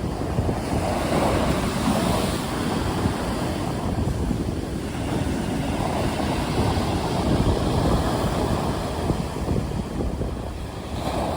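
Stormy sea surf: waves breaking and washing in a continuous rush that swells and eases every few seconds, with wind rumbling on the microphone.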